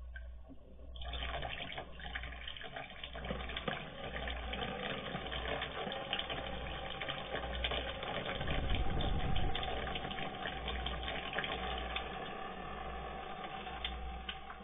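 Water running steadily from a water cooler's dispenser spout and splashing onto the floor, the tap held open by a cat pressing the dispenser button with its paw. It starts about a second in and stops just before the end.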